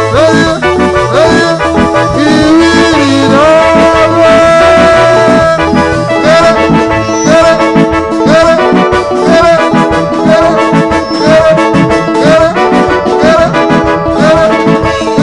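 Live praise band music with a drum kit and an electronic keyboard, carrying a held melody line that slides between notes.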